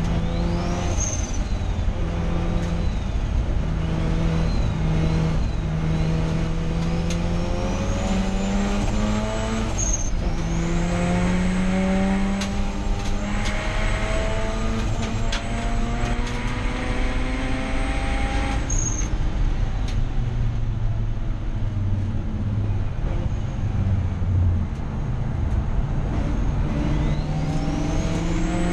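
Mazda RX8 race car's turbocharged 13B rotary engine pulling hard through the gears. Its pitch climbs, drops at each shift or lift and climbs again, with a high whistle rising with the revs that cuts off twice. For a stretch in the second half it runs lower, then winds up again near the end.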